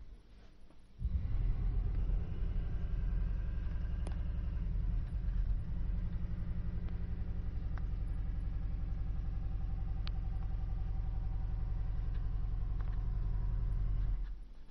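A motor-driven machine running with a steady low hum. It switches on abruptly about a second in and cuts off shortly before the end.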